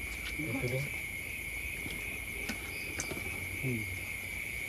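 Night insects trilling steadily in one high, unbroken tone, with a few light clicks of stones being handled.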